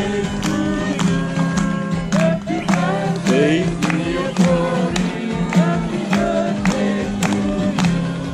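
A group of people singing together to a strummed acoustic guitar, clapping in time about twice a second.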